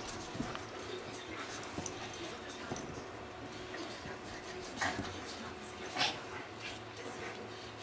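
Two small dogs play-fighting, with short dog vocal sounds throughout. Two sharp calls about five and six seconds in are the loudest.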